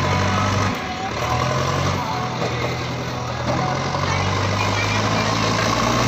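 JCB 3DX backhoe loader's diesel engine running as the machine works, its pitch dropping and rising a few times as the revs change.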